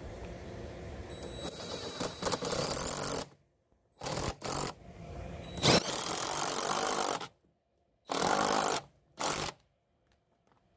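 A DeWalt cordless impact driver is tightening the screw of a pool filter tank's belly-band clamp through a socket extension. It makes one long run of about three seconds, then five shorter bursts with pauses between, as the clamp is cinched down.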